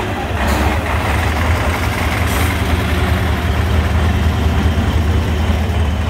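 Six-wheeled trial truck's diesel engine running steadily under load as the truck crawls through deep mud, with a deep, continuous hum. Two brief hisses come about half a second and two seconds in.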